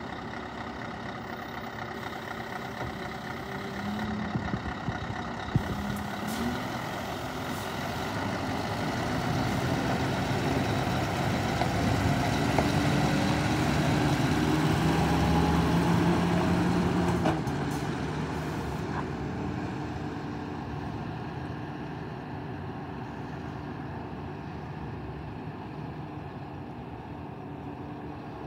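Scania R500 truck's V8 diesel engine running, growing louder through the middle, then dropping suddenly and fading as the truck drives away.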